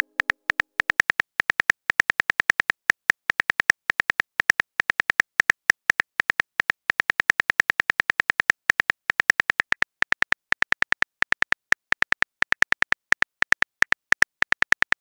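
Smartphone on-screen keyboard click sounds: a rapid, uneven run of short, crisp taps, several a second, as a text message is typed out.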